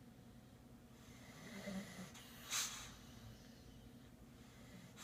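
Snoring in sleep: a low snore swells from about a second in, then a short, sharp breath out about two and a half seconds in is the loudest sound. Another breath begins near the end.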